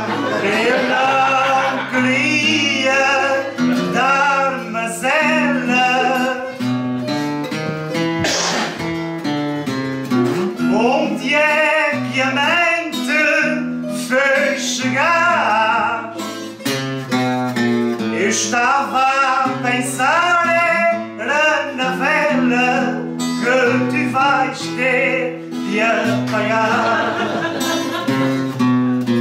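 Live acoustic music of plucked and strummed guitars: a quick melodic line over a stepping bass, playing steadily throughout.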